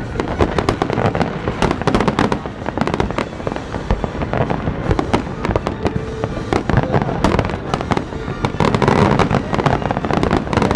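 Aerial fireworks shells bursting in a dense barrage, many sharp bangs a second, overlapping one another.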